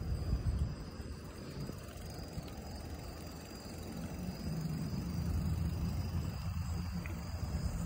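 Low, steady rumble of wind and tyres from a bicycle being ridden along pavement, getting louder about halfway through. Crickets trill steadily in the background.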